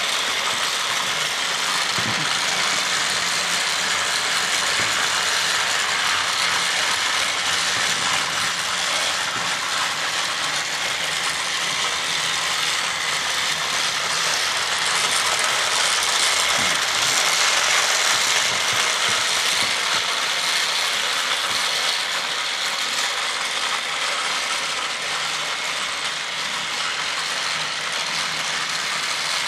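Two battery-powered TrackMaster Percy toy train engines running laps of plastic track with their wagons in tow. Their motor gearboxes and wheels make a steady mechanical whirring and clatter.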